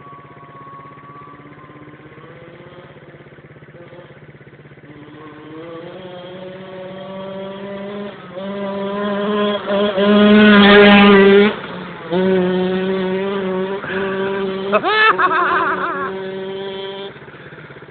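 Scrambler dirt bike's engine coming closer, faint at first and growing steadily louder to its loudest about ten to eleven seconds in. It runs on with a quick sharp rev about fifteen seconds in, then falls away near the end.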